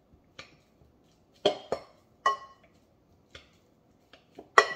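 Metal masher knocking and clinking in a mixing bowl as bananas are mashed by hand: irregular taps, a few of them ringing briefly, the loudest near the end.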